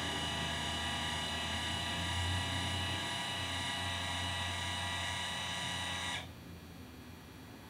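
Celestron CGX equatorial mount's drive motors whining steadily as the mount slews, then cutting off abruptly about six seconds in. This is one of the repeated halts partway through a slew that the owner is counting as the mount's problem.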